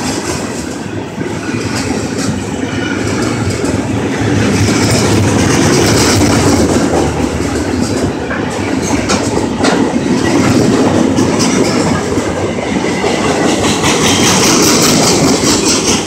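Florida East Coast Railway rail train, flatcars loaded with long steel rails, rolling past close by: a loud, steady rumble of wheels on track with many sharp clicks and clacks.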